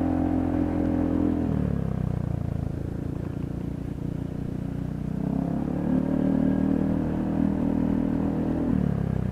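Motorbike engine running while riding along a street. Its steady note eases off about one and a half seconds in, picks up again about five seconds in, and eases off again near the end.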